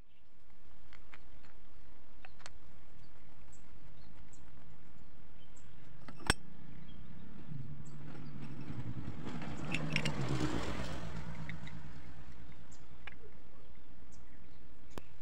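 Small metal parts handled, with light clicks and one sharp click about six seconds in. A vehicle passes in the background, swelling and fading away around the middle.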